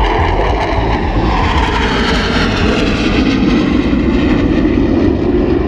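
Blue Angels F/A-18 Hornet jets flying past in formation: a loud, steady jet roar.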